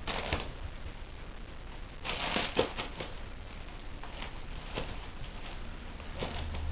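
Rustling and crinkling handling noise in several short bursts, with quieter gaps between them.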